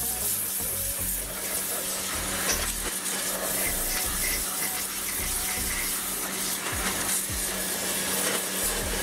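Dedra 1900 W electric pressure washer blasting a jet of water against the dirty metal underside of a lawn mower deck: a steady hiss of spray with a steady hum underneath.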